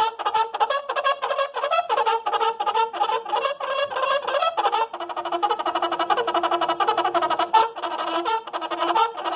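A trio of bugles playing a fast call together in harmony. For about five seconds they play quick detached notes, about four or five a second; then comes a run of very rapid repeated notes over held tones.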